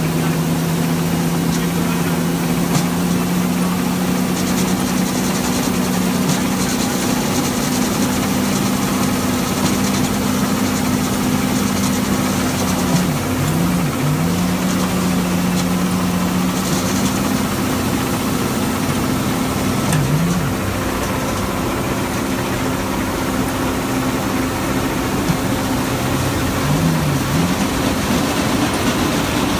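Engine-driven grain-handling machinery running steadily while canola is unloaded through a drive-over hopper conveyor into a 13-inch auger. The engine hum is constant, with a brief dip in pitch a few times.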